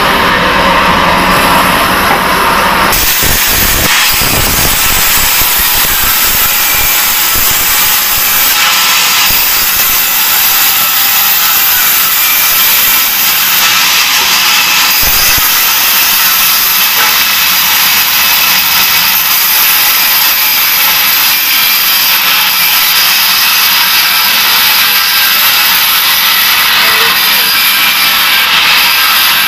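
Large bandsaw mill blade cutting through a teak log, a loud steady hiss. About three seconds in, the lower rumble drops away and the high hiss brightens.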